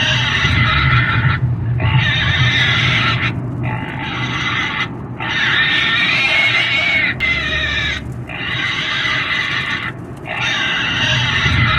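A pig screaming loudly in repeated long squeals, each about one to two seconds, with short breaks for breath between them, about six in a row.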